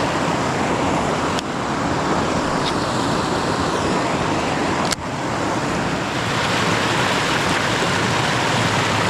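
Creek water rushing over rocks, a loud steady wash, with two short clicks about one and a half and five seconds in.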